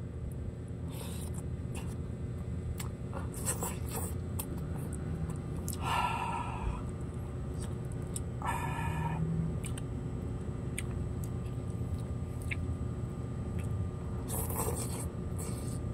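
Ramen noodles being slurped in several short bursts, with chewing in between, over a steady low hum.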